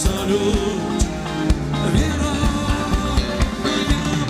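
Live pop-rock band playing with a steady drum-kit beat, electric guitar and keyboards.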